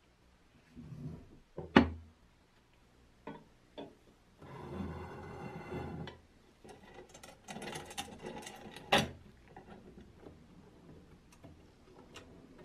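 Workshop handling sounds while restoring a fan: scattered clicks and knocks, a busier stretch lasting about a second and a half starting about four and a half seconds in, and a sharp knock about nine seconds in.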